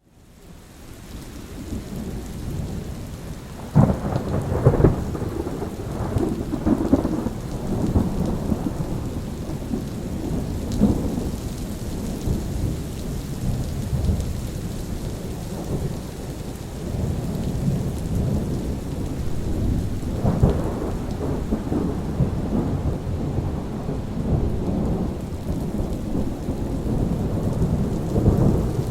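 Steady rain with rolling thunder, fading in from near silence at the start. A sharp thunderclap comes about four seconds in and rumbles on for several seconds, and a second clap breaks about two-thirds of the way through.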